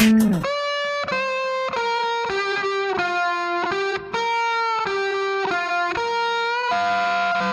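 Background music: the beat drops out about half a second in, leaving a lead melody of single held notes that step up and down.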